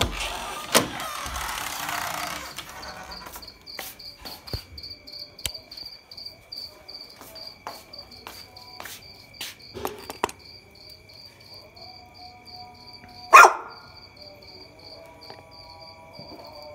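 Insects chirping steadily in a high, regular rhythm of about three chirps a second, over a faint steady high tone. A metal spoon scrapes and clicks against a plate of rice, with a scraping stretch at the start and one loud knock late on.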